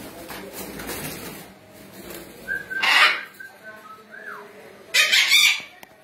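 Blue-and-yellow macaws screeching: two loud, harsh squawks, one about three seconds in and one near the end, with a few short whistles between them. Wings flapping at the start.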